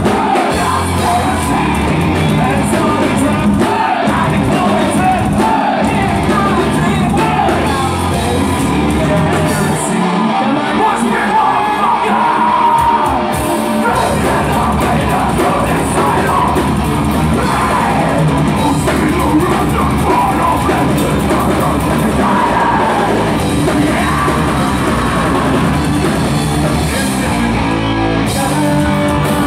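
Melodic death metal band playing live: distorted electric guitars and a drum kit played hard, with vocals over them.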